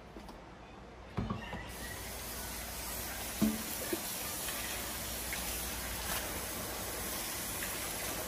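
Water running in a steady stream into a sink, starting a little under two seconds in, with a few hard knocks of a blender jar being handled. The container is being rinsed after its self-clean cycle.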